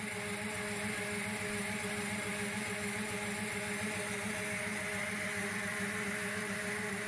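Air drill running steadily, turning a Kwikway line boring bar as it bores out the bearing line of a Fairbanks Morse ZC-118 engine: an even mechanical hum with a hiss.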